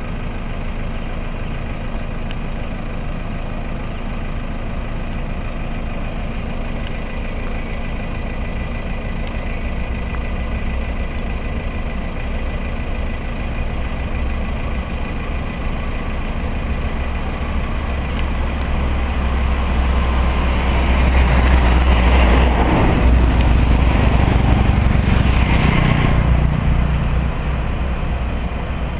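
Car engine idling steadily with a low hum. In the last third a louder rushing noise swells and then fades.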